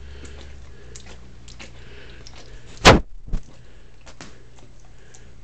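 A single sharp knock about three seconds in, the loudest thing here, followed by a smaller one half a second later, over a faint low hum and small soft clicks.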